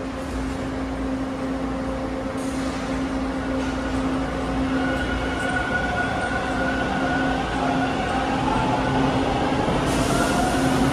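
Toronto TTC T1 subway train pulling out of the station along the platform: rumbling wheel and rail noise with a steady whine, getting louder as it picks up speed.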